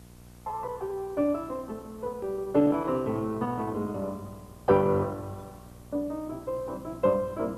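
Piano music, a run of separate notes and chords starting about half a second in, over a steady low hum, in the manner of a silent-film accompaniment.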